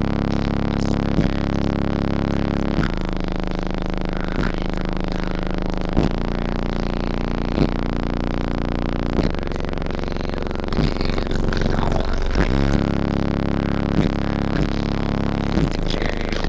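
Electronic music with long sustained bass notes and a sharp beat about every second and a half, played loud through a custom car audio system of door-mounted speakers and tweeters, heard inside the vehicle's cabin.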